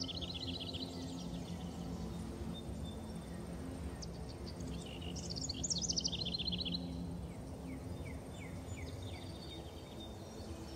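Soft ambient background music of steady low sustained tones, layered with birdsong. Rapid high trilling chirps come near the start and again about five to seven seconds in, with fainter chirps after.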